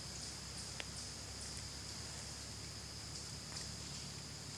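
Steady high-pitched chorus of insects in the woods, with faint chirps repeating about twice a second. A single light click about a second in.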